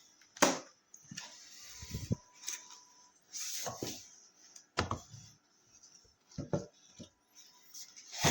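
Handling noises: small objects being picked up and set down, with a few sharp knocks and some rubbing and rustling in between. The loudest knocks come about half a second in and near the middle.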